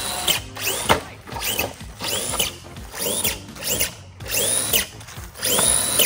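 Traxxas Grave Digger RC monster truck's VXL brushless motor, on a 3S battery, whining in short throttle bursts about once a second, each whine rising and then holding briefly.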